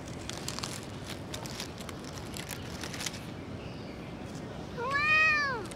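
A drowsy orange tabby cat gives one meow near the end, lasting just under a second, rising and then falling in pitch. Faint scattered clicks come before it.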